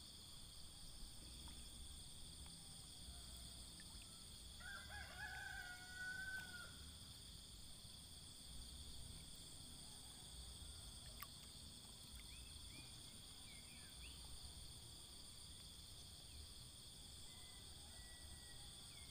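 A rooster crows once, faintly, about five seconds in, over a steady high-pitched insect chorus.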